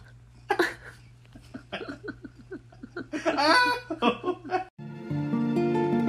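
A person laughing in irregular bursts over a steady low hum. About five seconds in it cuts off suddenly and acoustic guitar music begins.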